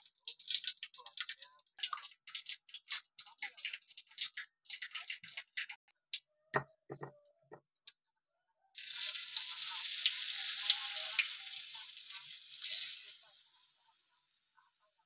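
Peanut peyek batter stirred in a plastic bowl, a rapid, irregular clatter of scrapes and taps. About nine seconds in, a ladleful of batter goes into hot oil in a wok and sizzles loudly. The sizzle dies away over the last two seconds.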